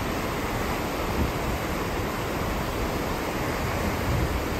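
Rushing, churning water of a ship's wake behind the stern, a steady even hiss of foam and sea.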